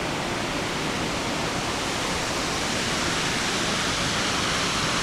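Waterfall rushing steadily: water cascading over a series of rock ledges, an even roar of falling water that grows slightly louder toward the end.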